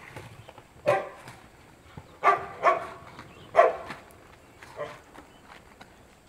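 A dog barking, about five short barks spaced a second or so apart.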